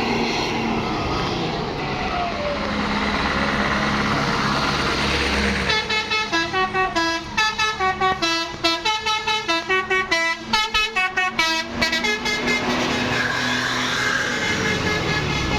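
Bus telolet horn, a multi-tone air horn, playing a quick tune of short notes, about four a second, for roughly seven seconds starting about six seconds in. A bus engine runs steadily under it.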